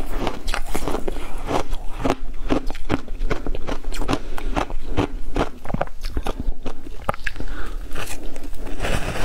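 Close-miked crunching and chewing of ice chunks coated in matcha powder: a quick run of sharp crunches, about two or three a second, with a fresh bite into a new chunk near the end.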